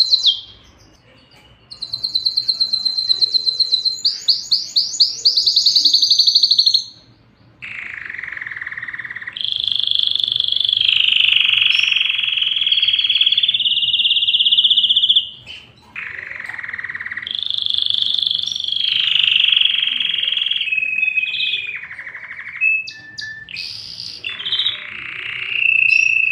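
Canary singing: fast, high trills in the first few seconds, then long, harsh rolling phrases lower in pitch, broken by short pauses.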